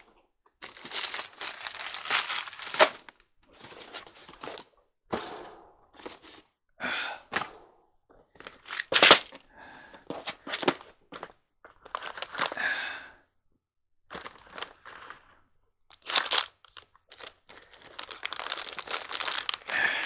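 Someone rummaging through stored things in search of something: irregular rustling and crinkling that stops and starts, with a few sharp knocks and clicks.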